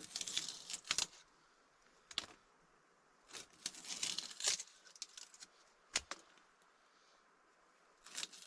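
Scattered handling noises: light clicks and knocks with a stretch of rustling in the middle, and a sharper knock with a low thud about six seconds in.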